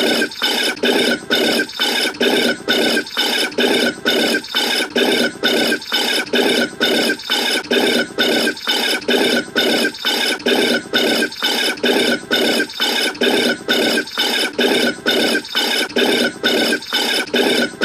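A bird calling over and over in an even, unbroken rhythm, about two calls a second, each call full and raspy-sounding across a wide range of pitch.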